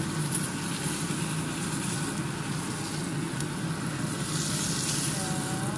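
Butter and fish drippings sizzling steadily in a frying pan, with a wooden spatula moving the fried fish pieces across the pan, over a steady low hum.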